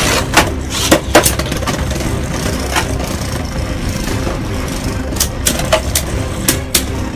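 Two Beyblade Burst tops, a Takara Tomy Rage Longinus and a no-brand copy, spinning on a plastic stadium floor with a steady whirring rumble. They clack sharply as they collide: a few hits in the first second or so and a quick run of them in the last two seconds.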